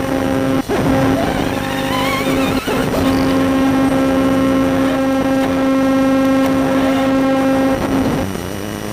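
Background music with long held, steady notes and a wavering higher line over them, without a drum-like beat.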